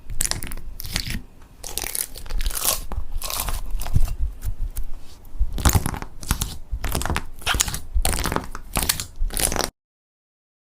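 Slime being squeezed and pressed by hand, giving a run of irregular crunchy crackles and pops. It cuts off abruptly to silence about a second before the end.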